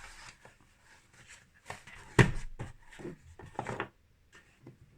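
Packaging being handled: a few light knocks and rustles as the box and its contents are moved, with one sharper knock about two seconds in.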